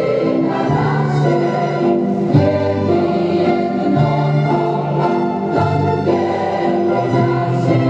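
Waltz music for a Polish folk dance, with sustained organ-like chords over a low bass note that changes about every one and a half seconds.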